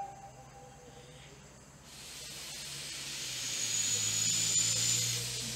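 Small narrow-gauge steam locomotive getting under way: steam hissing from its open cylinder drain cocks. The hiss sets in about two seconds in and builds.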